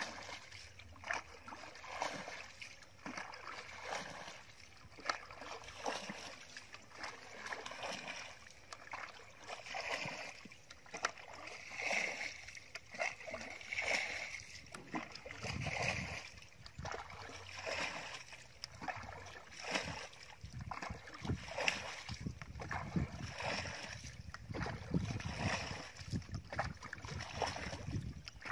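Repeated splashes of water as a metal bucket is scooped through a shallow muddy pool and its water thrown out over a mud dam, about one throw every second or two: bailing the pool dry.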